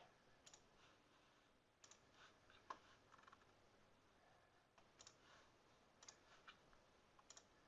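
Faint computer mouse clicks, scattered and irregular, over near-silent room tone.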